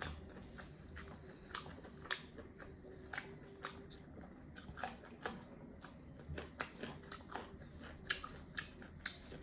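Person eating chicken curry up close: chewing and wet mouth smacks, heard as irregular soft clicks about two or three times a second, over a faint steady low hum.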